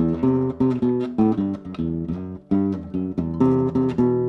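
Kremona F65 classical nylon-string guitar played hard in a rhythmic run of plucked chords with its HyVibe effects switched off, the last chord left ringing near the end.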